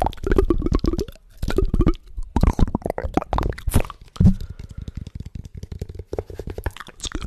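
Close-miked ASMR mouth sounds: quick trains of wet clicks, pops and smacks in clusters, some with a short voiced buzz. A single deeper pop about four seconds in is the loudest.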